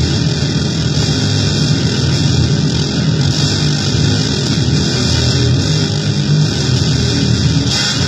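Harsh distorted noise from a home-built effects pedal under test: a loud, steady wall of buzzing noise with a strong low drone.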